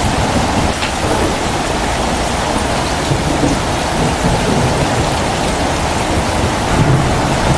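Steady rain falling, a dense even hiss with a low rumble underneath.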